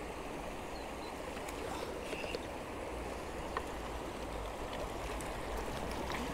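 Stream water flowing steadily, an even rush of running water with a few faint ticks.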